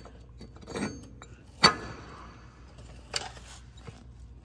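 Metal parts clinking and knocking as a Jeep CJ7's front axle shaft and hub are worked into the steering knuckle. One sharp, ringing clink comes about a second and a half in, with softer knocks before and after it.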